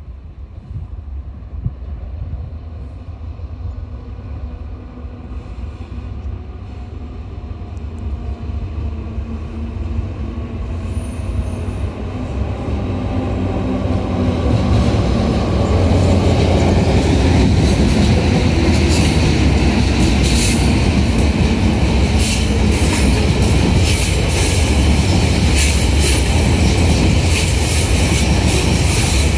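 TasRail TR-class diesel-electric locomotives approaching and passing, the engine growing louder over the first fifteen seconds, followed by a train of container wagons rolling by with wheels clicking over the rail joints and brief high wheel squeals.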